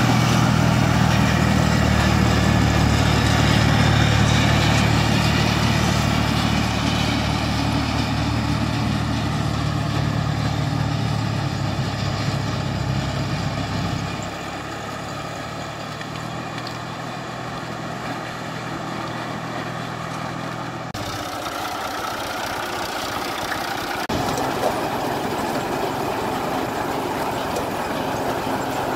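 IMT 542 tractor's diesel engine running steadily, hitched to a SIP Tornado 40 corn picker. The engine is loudest for the first dozen seconds, then quieter and more distant.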